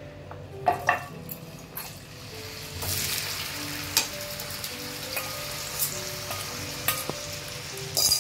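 Marinated minced mutton sizzling as it starts to fry in hot oil in a non-stick pan, the sizzle growing louder about three seconds in. A metal spoon and fork tap and scrape against the pan several times as the meat is pushed around.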